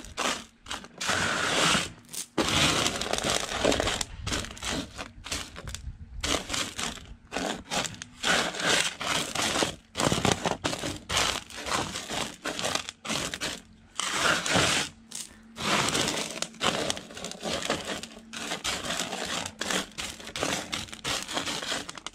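Small pebbles of washed sapphire gravel rattling and scraping across a metal sorting table as hands sweep and spread them, in uneven bursts with short pauses.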